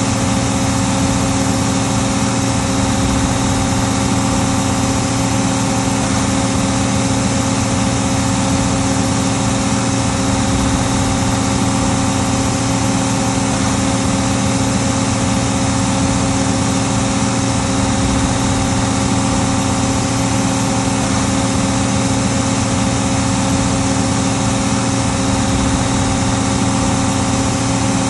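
Case 1570 tractor's diesel engine running steadily under load while pulling a five-bottom plow, with an even, unchanging note.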